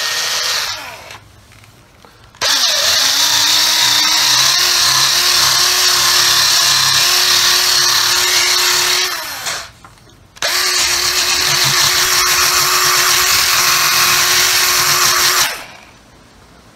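Small 12-volt polishing tool running a fluffy compounding pad over painted bodywork, cutting out scratches in the clear coat. After a brief burst at the start, its motor whine spins up to a steady pitch for about seven seconds, stops briefly, then runs again for about five seconds.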